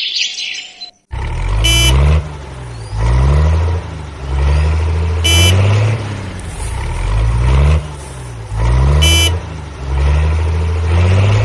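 Electronic toy-vehicle sound effect: a synthesized engine rumble that rises and falls, looping, with a short horn beep about every three and a half seconds. A few chirps fade out at the very start before it kicks in about a second in.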